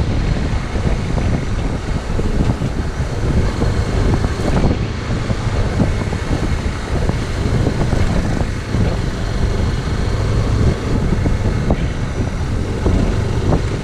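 Riding noise on a Zontes X1 350 motorcycle: a steady low rumble of wind on the microphone and road, with the bike's single-cylinder engine running underneath.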